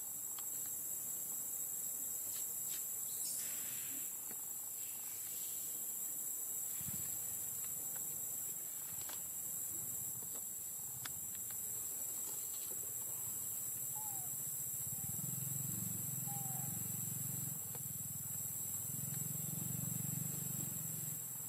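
Insects chirring in one steady high tone throughout, with scattered faint clicks and a low hum that grows louder in the last third.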